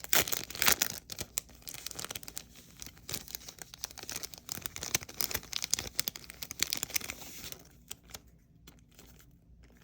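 Packaging being torn open by hand and crinkled, a dense crackling tear that is loudest in the first second, then dies down to occasional faint rustles from about three quarters of the way through.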